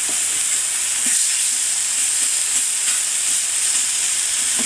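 Battered pork loin steaks sizzling on a hot grill, freshly flipped: a steady high hiss with faint scattered crackles.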